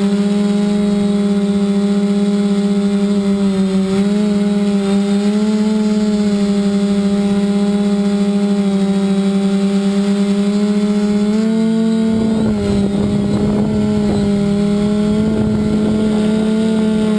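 Electric motors and propellers of a multirotor drone in flight: a steady hum whose pitch shifts a little as the motors adjust. About twelve seconds in, gusts of wind rumble on the microphone for a few seconds.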